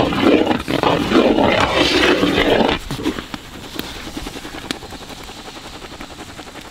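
A loud rough roar under thick jackfruit kesari being stirred in a large pot; the roar stops abruptly about three seconds in, leaving the soft squelching and scraping of the ladle working the thick mass.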